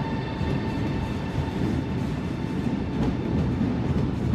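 Train running on the station tracks: a steady low rumble with a faint steady whine above it.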